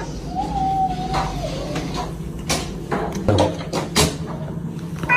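Black-and-white cat crying in a shower cubicle: a short falling meow at the start, then a faint drawn-out low cry, and another loud falling meow at the very end. A few knocks and bumps fall in between, over a steady low hum.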